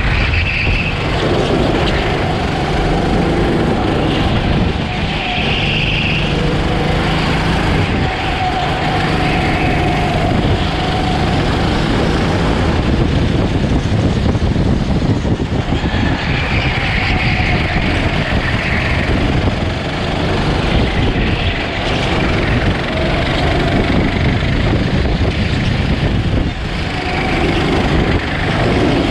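Go-kart engine running hard under the driver, heard from onboard, with its pitch rising and falling as the kart slows for corners and accelerates out of them, over steady wind and road noise.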